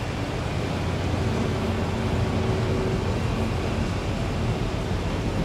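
Steady low rumble of a large motor yacht's engines as it passes close by, mixed with the hiss of wind and water.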